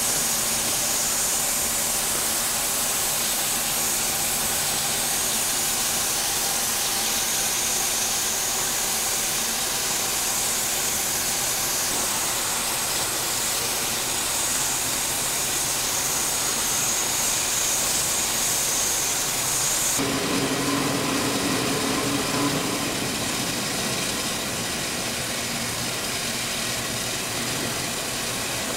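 Steam hissing steadily from Alco Type 70 steam locomotive No. 714 standing under steam, escaping around its running gear and front end. About two-thirds of the way through the sound changes abruptly and a lower hum joins for a few seconds.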